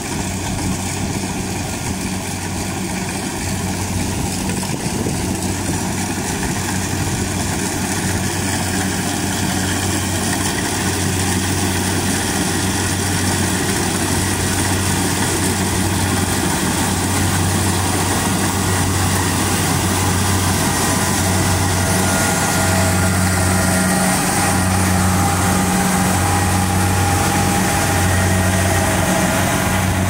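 Kubota DC-70 rice combine harvester's diesel engine and threshing machinery running steadily while it cuts rice, growing louder as the machine comes closer.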